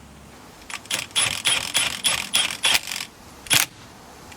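Ratchet wrench with a 16 mm socket turning the steering wheel's centre bolt, clicking in quick back-and-forth strokes about three a second, a short pause, then one more stroke.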